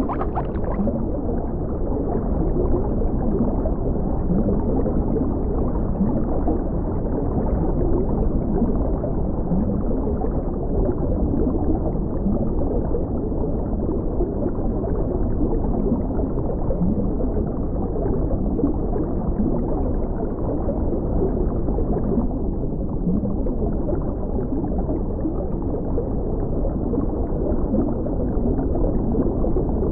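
Muffled underwater ambience: a steady, dull rush of water with soft bubbling and gurgles.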